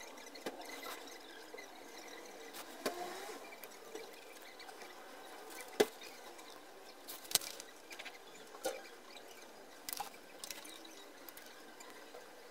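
Faint small-tool handling noise: a soldering iron tip and needle-nose pliers working copper wire onto transistor legs on a metal heatsink, with about half a dozen sharp clicks and taps, the loudest near the middle.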